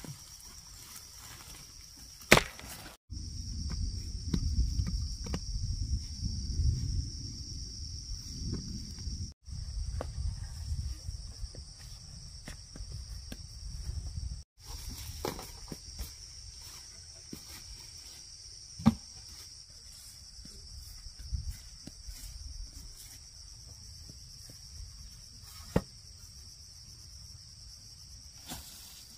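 A steady, high insect drone with a few sharp knocks scattered through it, and a low rumble for several seconds near the start. The sound drops out abruptly three times.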